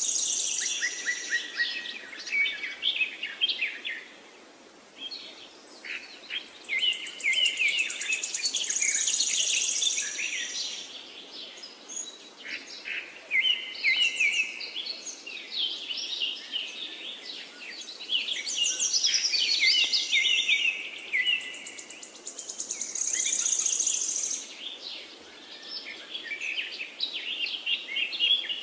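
A songbird singing a long, varied song of rapid chirps and trills, with short pauses a few times.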